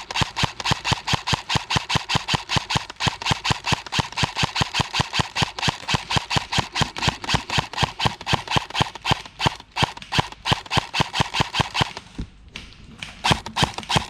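Airsoft gun firing a long, fast, steady run of shots, several a second, that breaks off for about a second near the end and then starts again.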